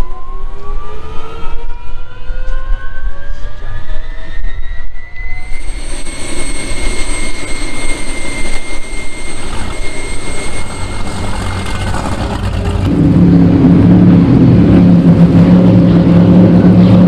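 Gas-turbine powerboat's turbine whining, rising in pitch over the first few seconds and then holding a steady high whine. In the last four seconds this gives way to a louder, steady low drone from a racing powerboat's engines running at speed.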